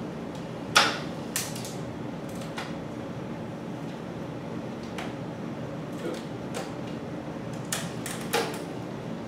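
Scattered sharp clicks and light knocks, about eight over several seconds, as a road bike's rear drivetrain is handled in a repair stand, over a steady low hum.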